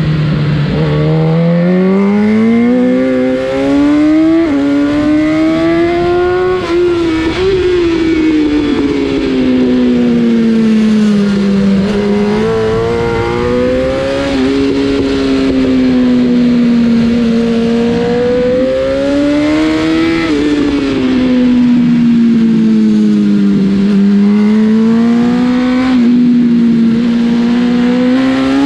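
BMW S1000 RR's inline-four engine at racing pace round a circuit, its pitch climbing steeply under acceleration and sagging back several times as the bike slows for corners.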